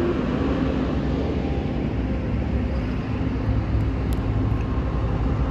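Road traffic: a steady low engine rumble with road noise from motor vehicles.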